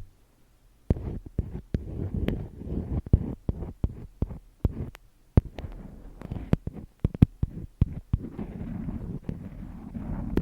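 Irregular close-up tapping and clicking on small objects, with soft rustling between the taps and a patch of fuller rustling near the end.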